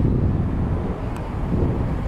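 Twin-engine jet airliner (Boeing 737) climbing after takeoff, its engines giving a low, steady rumble mixed with wind buffeting the microphone.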